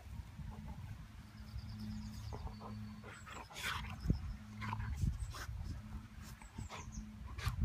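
A dog's breathing and snuffling in short, irregular bursts, over a steady low hum.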